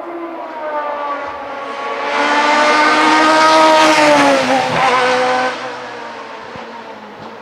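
Open-cockpit sports prototype race car driving past at speed. Its engine note grows louder and climbs in pitch as it approaches, drops in pitch as it passes about four and a half seconds in, then fades away.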